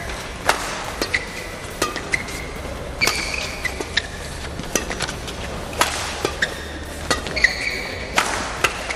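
Badminton rally: rackets strike the shuttlecock in sharp hits roughly once a second, with short high squeaks of court shoes on the floor between the hits.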